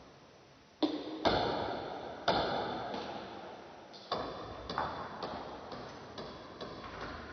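Table tennis rally: the ball clicking off paddles and the table in a string of sharp hits, each trailing off in a long echo. The hardest hits come about a second in and around two seconds in, then a run of lighter, quicker taps.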